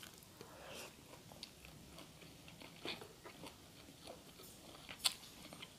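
A person chewing food close to the microphone, with a few faint sharp crunches and mouth clicks; the sharpest comes about five seconds in.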